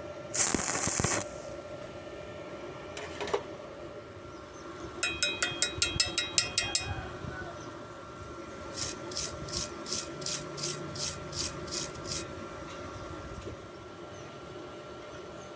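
Metal workshop hand-tool work: a quick run of about a dozen ringing metal taps, then about ten even scraping strokes, roughly three a second, over a faint steady hum.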